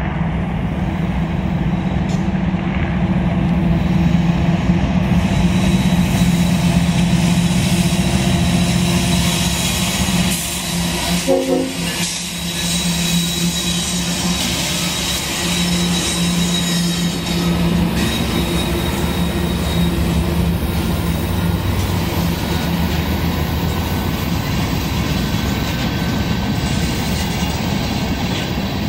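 Freight train passing close by: its diesel locomotives' engines run past over the first part, then a string of tank cars rolls by with steady wheel-on-rail noise.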